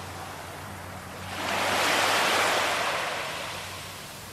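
A small sea wave breaking and washing up a sandy beach, swelling about a second in and slowly fading as it runs back.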